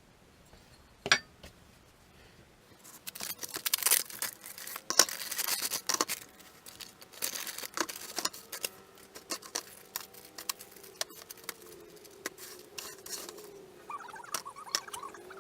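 AR-15 rifle parts being handled and clinking against each other and the work surface. A sharp click comes about a second in, then a few seconds of dense rattling and rustling, then scattered lighter clicks.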